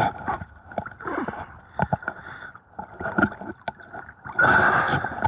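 Lake water splashing and sloshing as a person moves through it, in irregular separate splashes and drips, with a longer, louder splash near the end.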